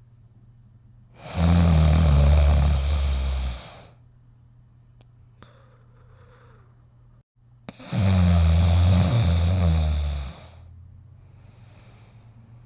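A cartoon dog snoring in its sleep: two long, loud snores about six seconds apart, each lasting about two and a half seconds, with faint breathing between them.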